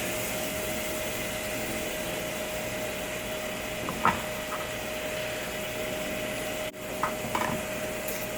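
Mushrooms sautéing in a pan with a splash of chicken broth, sizzling steadily. A utensil clinks against the pan about four seconds in, with a few lighter knocks near the end.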